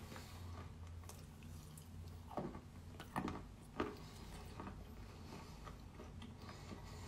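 A person chewing a mouthful of Volyn clay chalk paste with the mouth closed: quiet, small mouth clicks, with three louder chews or squelches around the middle.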